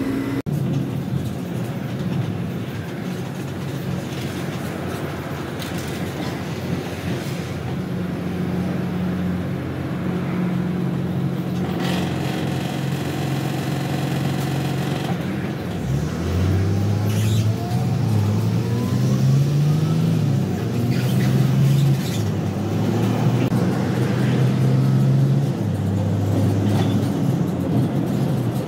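City bus ride heard from inside: steady motor and road noise, with a whine rising in pitch partway through as the bus gathers speed.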